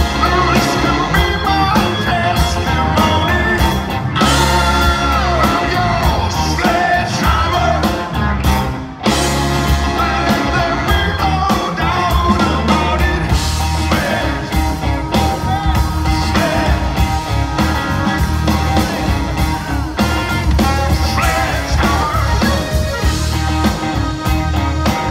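Live rock band playing, with a male lead vocal over bass guitar, drums and saxophone; the music dips briefly about nine seconds in.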